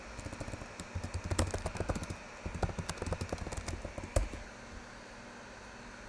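Typing on a computer keyboard: a quick, uneven run of key clicks that ends about four seconds in with one louder keystroke, leaving a faint steady hiss.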